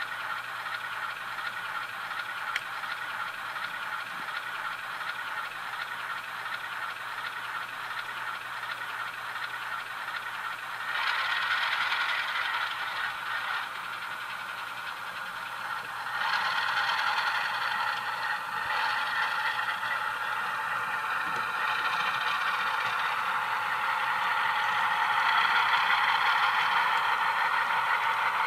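Onboard sound decoder of an HO-scale ALCo diesel locomotive model, playing prime-mover engine sound through its small speaker. It runs steadily, then gets louder about eleven seconds in, eases back a couple of seconds later, and rises again from about sixteen seconds as the locomotive pulls its cars. A single sharp click comes about two and a half seconds in.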